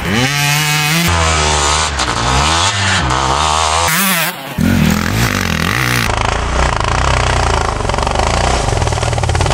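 Dirt bike engines, one of them a two-stroke, revving hard with the pitch rising and falling as the riders accelerate and shift. The sound changes abruptly several times where passes are cut together, and drops out briefly about four seconds in.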